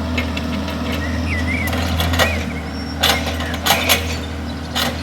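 Steady low rumble of a heavy vehicle engine running, with a few sharp clicks and knocks over it from about three seconds in.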